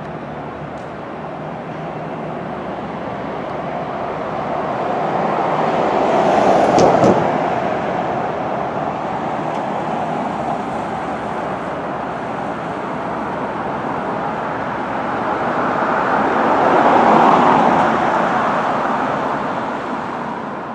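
City street traffic: a steady rush of road noise, with two vehicles passing close by, one about a third of the way in and another a few seconds before the end.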